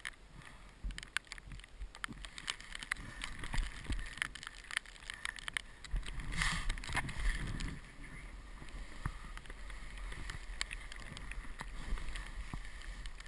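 Snowboard sliding and carving through snow: a continuous hiss and scrape of the board, with many sharp clicks and knocks through the first half that give way to a steadier hiss near the end.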